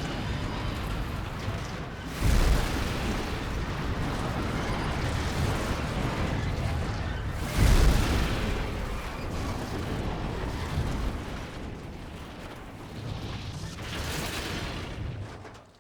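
Train running on the rails with a steady heavy rumble, broken by two loud bangs, about two seconds in and a louder one at about seven and a half seconds. The rumble dies away and stops abruptly near the end.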